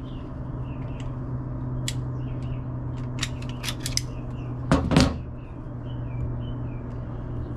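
Scattered metallic clicks and a couple of louder knocks from a Glock 19 pistol being handled, over a steady low hum.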